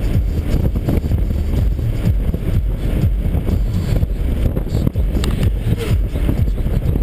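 Road and engine noise inside the cabin of a moving Volkswagen Saveiro pickup: a steady, loud low rumble.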